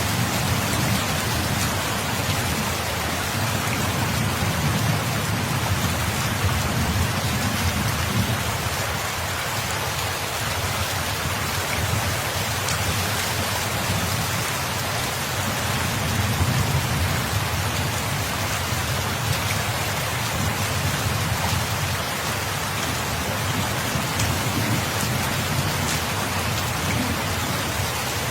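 Steady, heavy rainfall: a continuous dense hiss of drops with a low rumble underneath that swells and eases slightly.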